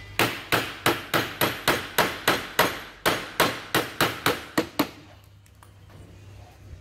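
A hammer striking a tool in rapid, ringing metal blows, about three a second, to knock loose a very tight nut while removing the fan clutch; about sixteen strikes with a short pause midway, stopping about five seconds in.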